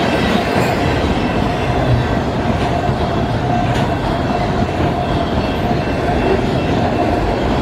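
Freight train of autorack cars passing at about 70 mph: a loud, steady rumble and rattle of wheels on rails.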